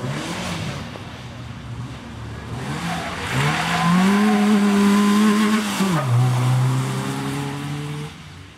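Peugeot 106 rally car's engine revving hard under acceleration. The revs climb and hold high, drop sharply about six seconds in, run lower, and then fade out near the end.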